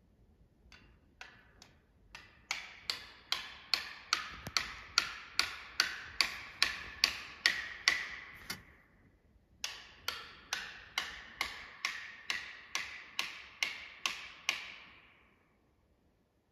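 Felling wedges being pounded into the cut of an oak tree: a few light taps, then sharp, evenly spaced blows with short ringing tails, about two and a half a second, in two runs with a brief pause about nine seconds in. The blows drive the wedges in to tip the tree.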